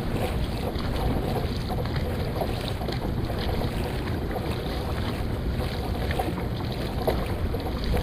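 Steady wind noise on the microphone over water sounds from a paddled boat on the river, with faint scattered splashes.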